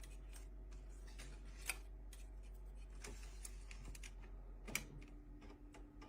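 Faint, irregular clicks and taps over a low steady hum, with two slightly louder clicks, one near the start and one near the end.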